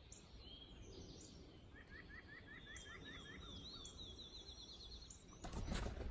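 Songbirds singing faintly in the woods: one bird gives a quick series of about eight short rising notes, overlapped by another higher series of repeated notes. Near the end comes a brief, louder rustling noise.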